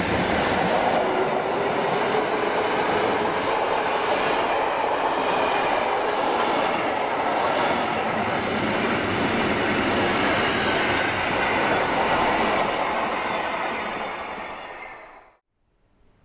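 Freight train of hopper wagons rolling past, a steady rumble of wheels on rail. It fades and then cuts off abruptly about a second before the end.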